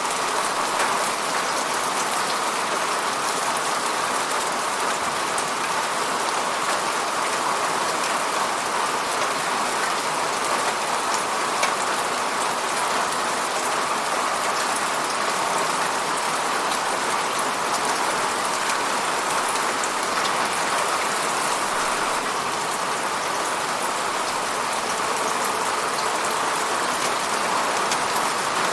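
Steady rainfall: an even hiss of falling rain with many small drop ticks on a surface.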